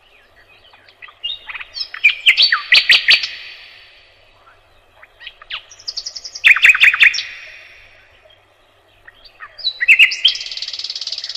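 Nightingale singing: three separate phrases of rapid repeated notes and clicks, with pauses of a second or two between them. The last phrase, about ten seconds in, runs into a fast, even trill.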